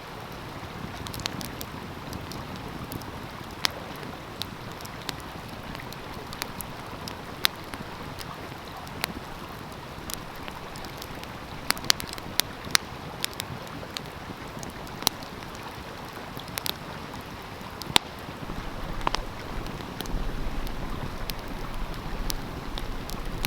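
Open wood fire crackling, with sharp irregular pops and snaps, over the steady rush of a stream. The rushing grows a little louder and deeper about two-thirds of the way in.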